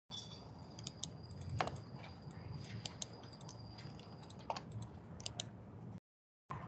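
Faint clicks of a computer mouse and keyboard as menus are opened and closed, over a low steady background hum, with a faint high whine in the first four seconds or so.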